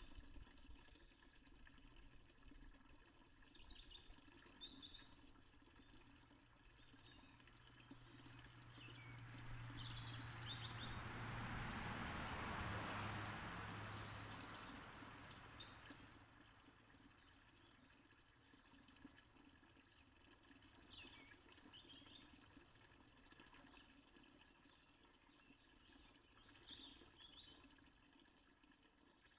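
Small birds chirping here and there over the faint, steady splash of a fountain. About halfway through, a rushing swell with a low hum under it rises, drops slightly in pitch and fades.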